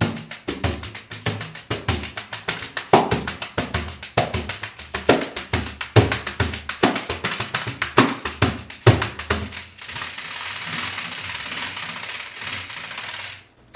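Pandeiro, a Brazilian frame drum with metal jingles, played by hand in a fast samba rhythm: low thumps from the drum head mixed with rapid jingle strokes. For the last few seconds the jingles are shaken in a steady continuous rattle that stops suddenly.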